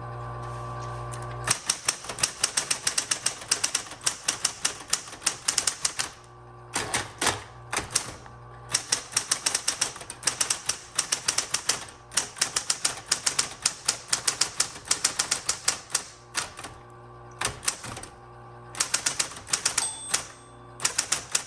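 1970s Smith Corona Coronomatic Super 12 electric typewriter being typed on in rapid runs of key strikes with short pauses. Its motor hums steadily underneath, heard alone for about the first second and a half before the typing starts.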